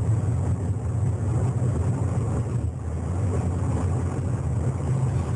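Steady low road rumble heard from inside a moving car's cabin: engine and tyre noise.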